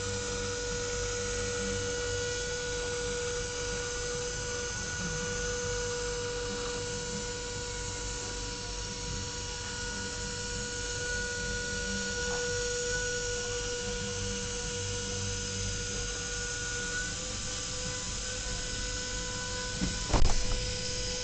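CNC router spindle milling 10 mm aluminium plate: a steady whine made of several high tones that waver slightly in pitch, over a low rumble. A sharp knock near the end.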